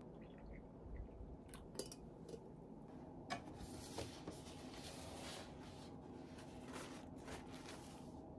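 A few light knocks and clinks, then the soft rustle of a paper cake box being folded and handled.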